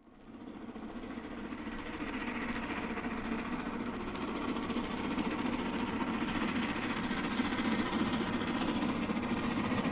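A train approaching, its steady rumble and hiss growing gradually louder, from an old 78 rpm record with a dull, narrow sound.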